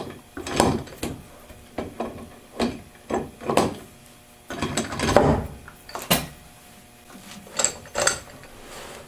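Steel Turbo 400 gear-train parts clinking and scraping as the reaction carrier is twisted and worked down onto the output carrier and mainshaft, in irregular knocks and rattles, a few louder about five and six seconds in.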